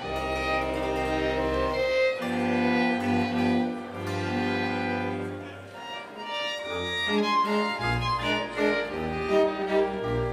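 Appenzell string band of violins, cello and double bass playing a folk tune. For the first six seconds the notes are long and held over sustained bass notes; after a short dip they turn shorter and more rhythmic.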